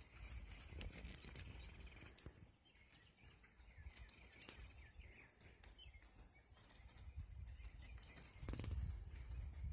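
Faint outdoor ambience: birds chirping softly over a low rumble, with a thin high trill for a couple of seconds around the middle.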